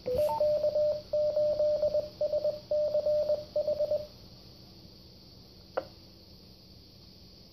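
Beep tones from a 2-meter amateur radio repeater, heard through an FM transceiver's speaker. A short rising chirp is followed by a single steady beep keyed on and off in five stretches for about four seconds, then one sharp click near six seconds.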